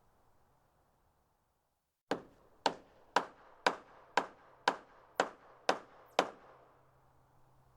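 Hammer striking wood nine times in an even rhythm, about two blows a second, starting about two seconds in.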